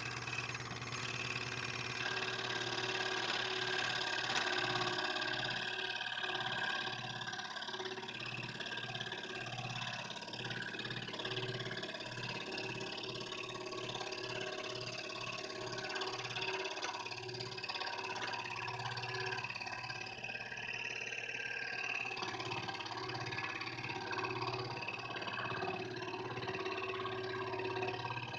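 Scroll saw running steadily, its reciprocating blade cutting a thin wooden butterfly cutout as it is fed by hand, with a low hum that pulses evenly.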